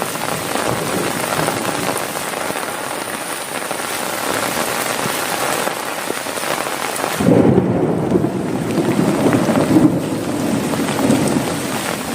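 Heavy rain falling steadily. About seven seconds in, a loud rumble of thunder rolls in and lasts several seconds before fading back into the rain.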